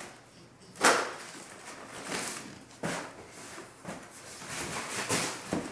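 Rustling of crumpled packing paper and light knocks and clatter of corrugated plastic (coroplast) snowflake pieces being handled in a cardboard box, with the sharpest knock about a second in and another near three seconds.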